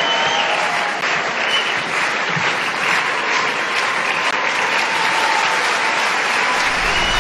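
Large hall audience applauding steadily. Music comes in under the applause near the end.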